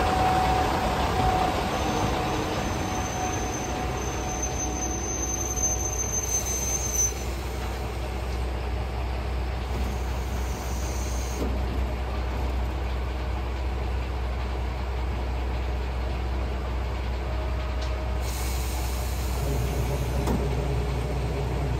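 Shimabara Railway diesel railcar coming to a halt at the platform with a thin squeal of the brakes in the first few seconds, then its diesel engine idling with a steady low hum.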